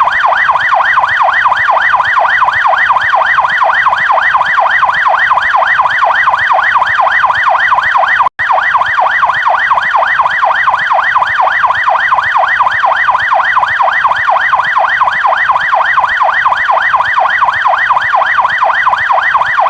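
American police siren on its fast yelp tone, the electronic wail sweeping up and down rapidly at about four to five cycles a second and running steadily, with a split-second break about eight seconds in.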